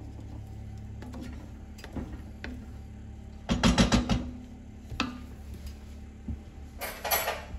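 Wooden spoon stirring a thick filling in a frying pan and knocking against the pan: a quick run of knocks about three and a half seconds in, another knock a second later, and a short rasping scrape near the end, over a steady low hum.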